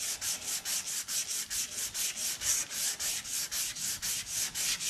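220-grit sandpaper on a hand sanding block rubbing back and forth over dried body filler glaze on a car's deck lid. Quick, even strokes of about four to five a second, each a dry scratchy hiss.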